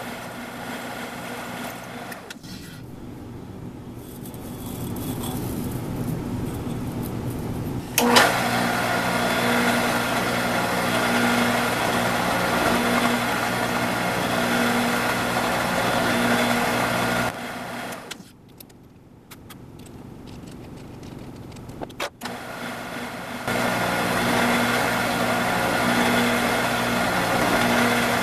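Drill press motor running while drilling and countersinking holes in an aluminum part, a steady hum with cutting noise. The sound falls away twice, and the machine comes back on with a sharp click about eight seconds in and again near the end.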